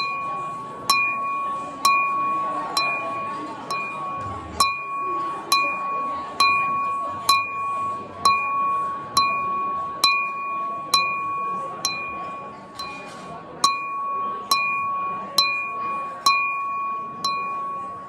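A drinking glass partly filled with water struck over and over at an even pace of about one strike a second, each strike ringing a clear bell-like tone that fades before the next. The steady ding-ding cadence imitates an EMD locomotive's steel bell.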